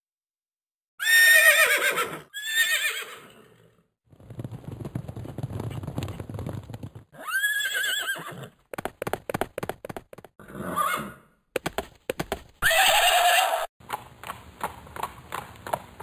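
Horses whinnying several times, with hoofbeats clopping in between.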